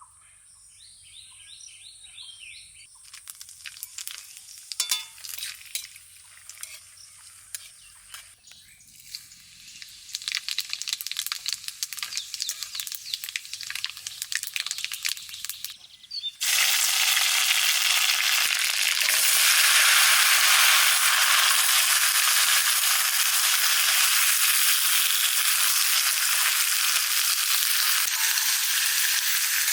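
Cooking oil in a pan: a few light clicks and scrapes, then a little over halfway in a sudden loud, steady sizzling as food goes into the hot oil and fries.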